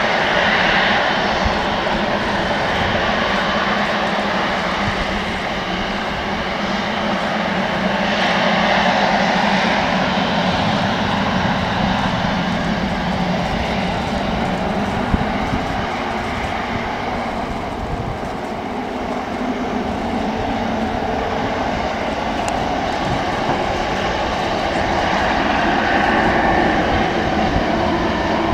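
Boeing 777 airliner's twin jet engines running at low thrust as it taxis: a steady jet rumble and whine that swells and eases slightly.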